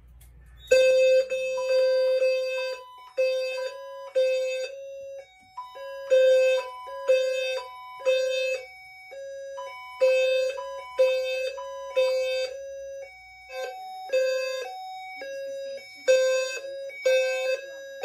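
System Sensor low-frequency fire alarm sounders (520 Hz horn-strobes) sounding in the three-pulse temporal code 3 pattern, starting about a second in, set off by a drill from the fire alarm panel's annunciator. Other higher-pitched alarm tones from the system's devices pulse over them.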